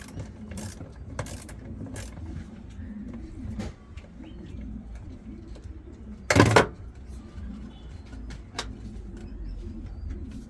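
Sharp clicks and knocks of tools and parts being handled while a top-loading washing machine is taken apart, with one loud clatter about six seconds in, over a low steady hum.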